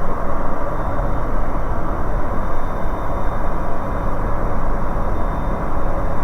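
Steady drone of a Bristell light aircraft's engine and propeller, with airflow noise, heard inside the cabin during descent.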